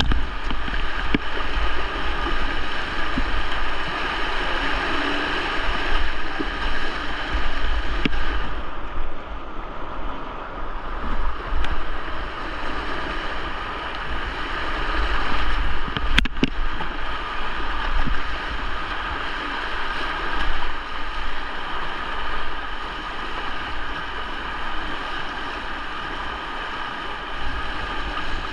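Fast-flowing water of the River Derwent running high, a steady rush, with wind rumbling on the microphone. A single sharp knock sounds about sixteen seconds in.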